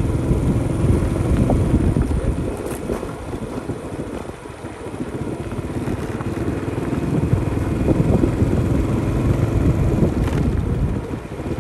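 Motorbike engine running while being ridden along a road, with wind buffeting the microphone; it eases off briefly about four seconds in, then picks up again.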